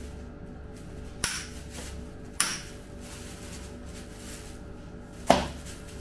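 Three short, sharp knocks from a bicycle crankset with its chainring and spindle being handled and turned, the one near the end the loudest, over faint background music.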